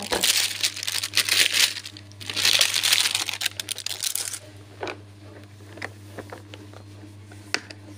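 Clear plastic cellophane wrapping crinkling and tearing as it is pulled off a plastic glass-paint palette, loud and continuous for about four seconds, then dying down to a few light clicks.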